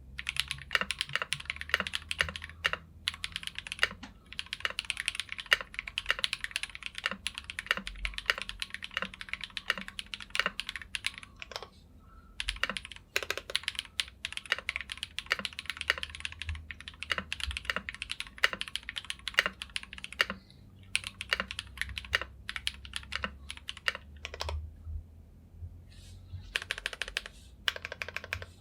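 Fast typing on a KBDFans Blade60 mechanical keyboard with Krytox-lubed Glorious Panda tactile switches and Akko PBT keycaps: dense runs of keystroke clacks broken by a few short pauses.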